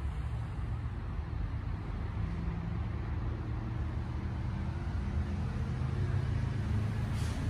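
Steady low rumble of background noise with a faint hum in it, growing a little louder towards the end.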